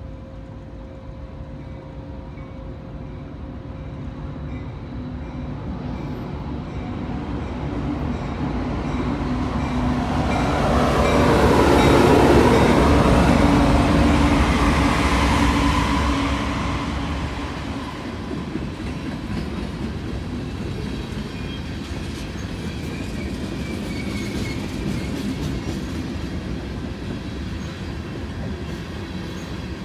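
A Canadian National freight train's two diesel locomotives approach and pass at close range. The sound grows steadily louder to a peak about twelve seconds in, then falls away. After that come the steady sounds of a long string of covered hopper cars rolling past on the rails.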